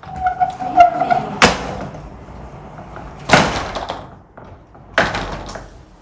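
Wooden sliding doors rolling along their tracks, with a squeal from the rollers at first, then knocking against their stops three times, a second or two apart.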